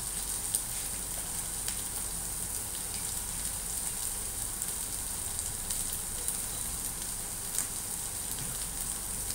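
Sliced green beans and onion sizzling steadily in hot oil in a frying pan, with a few small pops now and then.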